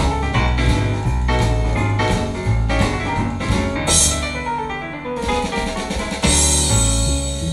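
Music with a drum kit and a stepping bass line, with bright cymbal crashes about four seconds in and again near the end, played through a pair of Vega 50AC-106 loudspeakers without the added bass drivers and picked up by a microphone in the room.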